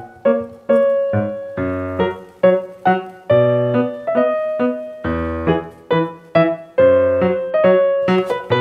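Background piano music: a light melody of separate notes, each struck and fading, over lower bass notes.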